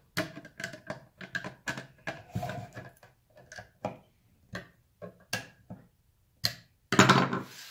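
Hand screwdriver giving the final tightening to screws in the plastic body of a MicroJig GRR-RIPPER push block: a run of small irregular clicks and ticks that thin out through the middle, with a louder burst of handling noise near the end.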